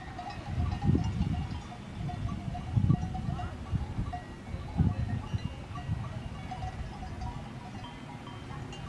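Distant livestock bells ringing irregularly across an alpine pasture, over low rumbling bumps on the microphone that are loudest about one, three and five seconds in.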